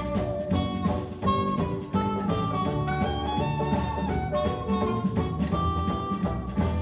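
Jazz music with held melody notes over a steady beat of about two a second.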